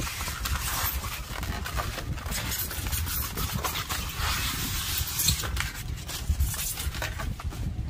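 A large knife cutting and scraping through a whole roast pig on a cardboard tray: an irregular run of scrapes and clicks, over a steady low rumble.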